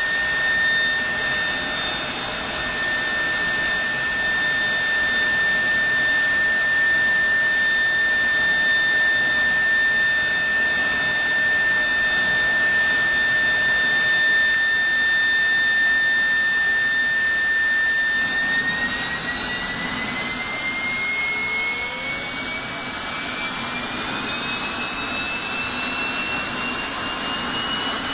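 F-16 jet turbofan engine running on a test stand: a steady loud rushing noise with a high whine. About two-thirds of the way through, the whine starts rising slowly and keeps climbing as the engine spools up to higher power.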